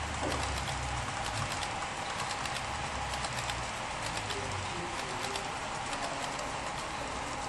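HO scale model freight train of hopper cars rolling past on the track, with a steady rumble and a rapid run of small clicks from the metal wheels on the rails and rail joints.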